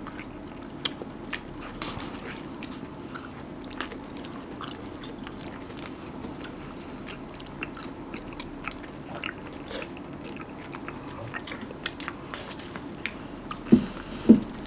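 People eating ice cream: small scattered bites, crunches and mouth clicks over a low steady hum, with two louder knocks near the end.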